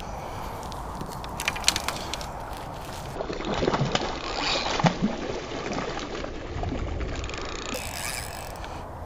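A small jack pike thrashing and splashing at the water's surface while being played on a rod, loudest about three to five seconds in. A few sharp clicks come shortly before the splashing.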